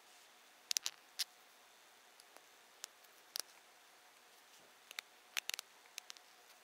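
Knitting needles clicking lightly against each other and the cable needle as stitches are knitted off it: faint, sharp clicks at irregular intervals, several close together in the second half.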